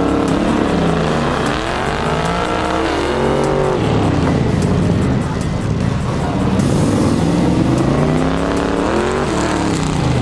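Modified trucks' engines revving up and down through an autocross course, the pitch climbing and dropping again every second or two as they accelerate and brake between cones.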